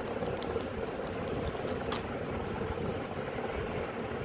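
Steady room hum and hiss with a few light crackles of a plastic food bag being handled, the sharpest about two seconds in.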